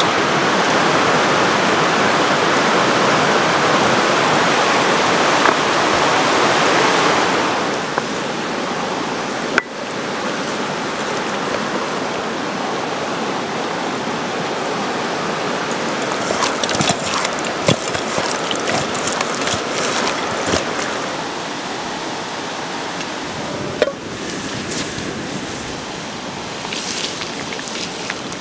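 Steady rushing of a flowing stream, louder for the first several seconds. Toward the end, a wood fire crackles with scattered sharp snaps.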